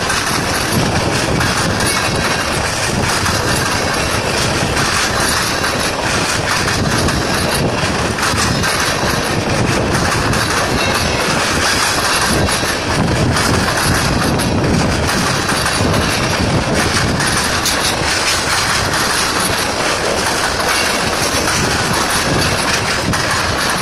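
CSX freight train's cars, covered hoppers and boxcars, rolling past at close range: a steady, loud wheel-on-rail noise with many short knocks.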